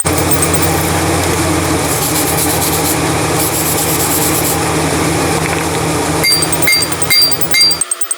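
A motor-driven machine running steadily, a dense rushing noise over a low hum, which cuts off abruptly near the end. Just before it stops come four light ringing metal clinks, about two a second.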